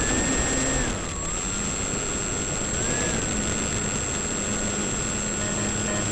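Brushless electric motor and propeller of a small radio-controlled foam model running, heard from a camera mounted on the model. Its whine holds steady, dips in pitch about a second in and settles a little lower, with a brief rise near three seconds, over a steady rush of air.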